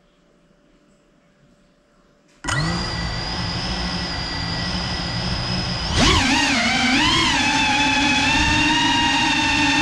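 Brushless motors and propellers of a GEPRC Cinelog 35 cinewhoop FPV drone. They spin up suddenly about two and a half seconds in and hold a steady idle whine. About six seconds in they throttle up for takeoff, louder, the whine wavering in pitch as the drone lifts off and hovers.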